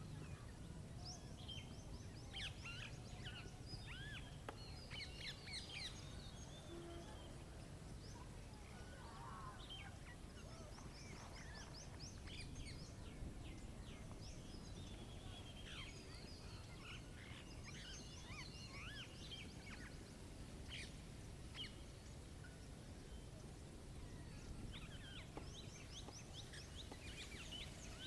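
Several songbirds chirping and singing at once, with quick whistled notes and rapid trills scattered throughout, over a faint steady low rumble of background noise.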